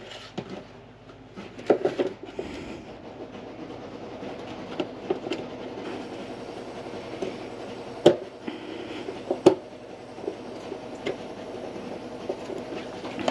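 Black plastic battery box lid being handled, with a battery meter pressed into a cutout in it. Plastic rubs and rattles, with a few sharp knocks: a couple about two seconds in, and two louder ones near eight and nine and a half seconds.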